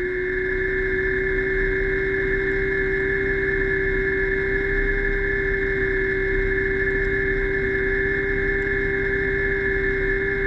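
Diver propulsion vehicle (underwater scooter) motor and propeller running at a steady speed underwater, a constant whine with an even pitch over a low hum.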